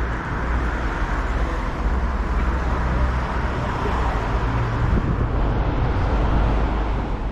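City street traffic: a steady rush of passing vehicles with a deep low rumble, swelling a little in the middle.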